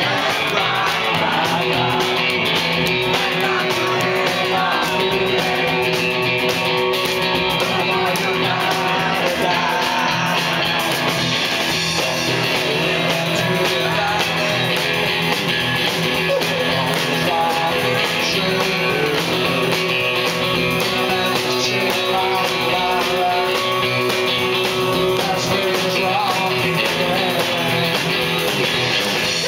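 Live rock and roll band: electric guitar and drum kit playing with a male lead vocal.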